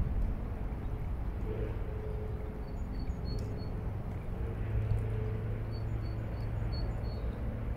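Outdoor background: a steady low hum with a distant engine's drone that comes in after about a second and a half, and small birds chirping in short repeated runs.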